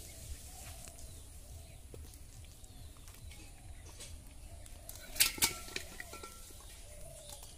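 Two or three sharp clinks close together about five seconds in, over a low rumble and faint, repeated cooing of doves.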